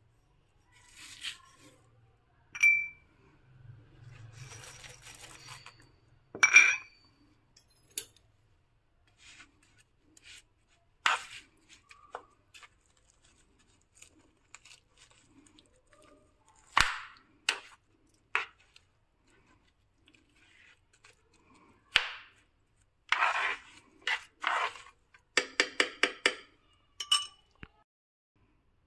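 Metal spoon clinking and scraping against a frying pan and glass spice bowls as seeds are tipped into oil and whole garlic is stirred and broken up: scattered sharp clinks, a soft rustle of seeds pouring about four to six seconds in, and a quick run of clinks near the end.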